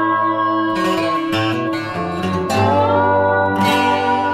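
Background music: slide guitar with plucked and strummed guitar, notes gliding between pitches.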